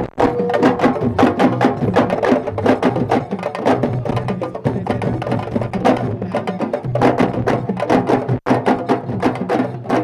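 Fast, dense drumming, the drums struck many times a second, with pitched music over the beat.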